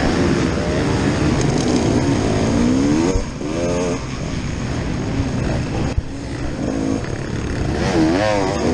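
Enduro dirt bike engine heard up close from the rider's own bike, revving up and down as the throttle is worked over a muddy track. The revs drop briefly about three and six seconds in, then rise and fall quickly several times near the end.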